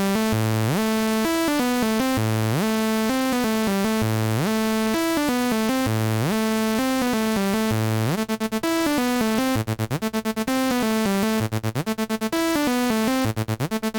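Electronic dance track with synth parts and a bassline whose notes slide upward in pitch, run through a tape-saturation plugin. About two-thirds of the way in the synths turn to rapid, choppy stuttering notes.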